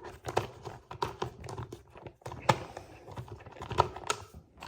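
Irregular plastic clicks and knocks as a Dyson V6 cordless vacuum's cyclone assembly is handled and taken apart, with a couple of louder knocks in the middle.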